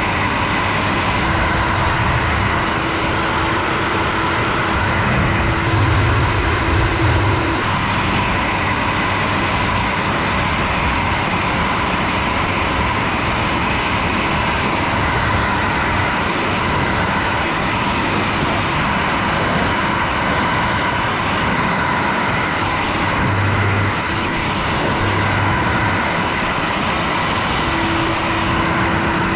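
Hair dryer blowing close up: a steady rush of air over a motor hum with a faint steady whine.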